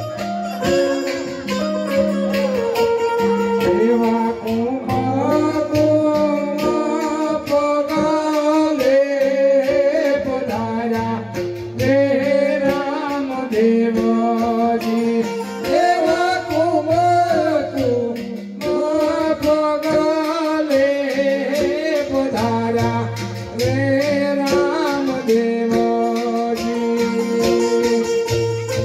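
Gujarati devotional folk music for Ramapir: a voice singing a wavering melody over held instrumental notes and steady jingling percussion.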